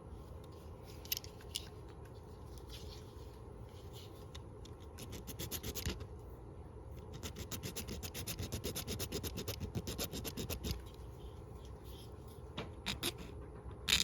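Small hand file rasping a thumb stud down to fit, in two runs of quick back-and-forth strokes, about five a second. A few sharp clicks near the end.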